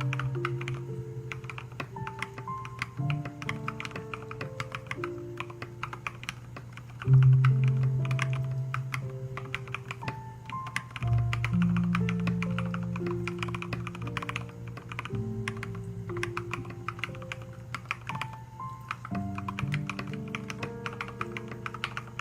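Fast typing on an Akko MOD001 mechanical keyboard with MT3-profile Serika keycaps: a quick, steady run of keystroke clacks. Background music with a bass line and melody notes plays underneath.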